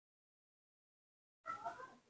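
Silence, then about one and a half seconds in a short, high-pitched cry from a newborn monkey as it is handled.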